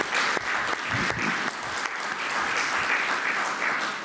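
An audience applauding: many people clapping steadily together.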